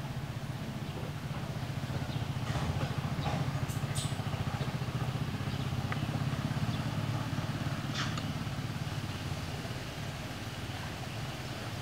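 A steady low motor rumble that swells a little in the middle and eases off near the end, with a few faint short chirps over it.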